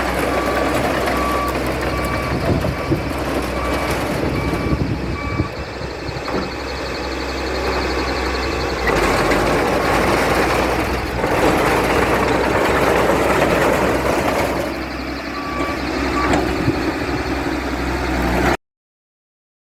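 Komatsu D31E bulldozer's diesel engine running, with its reversing alarm beeping about twice a second for the first five seconds and again briefly near the end. The sound cuts off abruptly just before the end.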